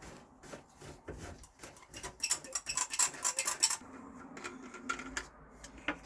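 Light clicks and rattles of plumbing pipe and fittings being handled and fitted together by hand, busiest in the middle, followed by a faint low hum.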